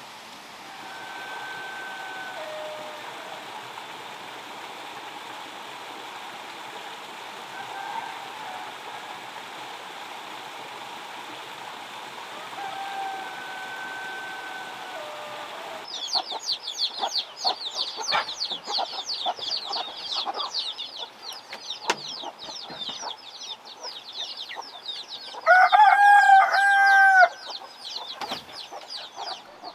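Rooster crowing loudly once near the end, about two seconds long, over a dense run of rapid high chirping. Earlier, a rooster crows faintly twice over a steady outdoor background hiss.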